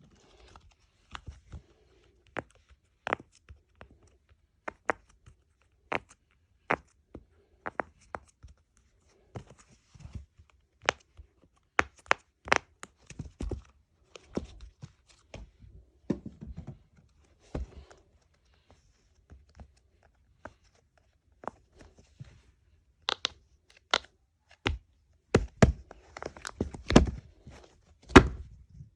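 Fidget toys being handled: irregular sharp clicks and knocks of small hard objects, roughly one a second, coming thicker and louder near the end.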